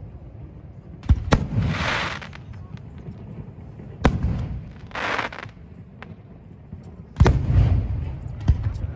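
Aerial firework shells bursting: sharp bangs about a second in, at about four seconds, and twice more near the end. A rushing hiss follows two of the bursts and lasts about a second each time.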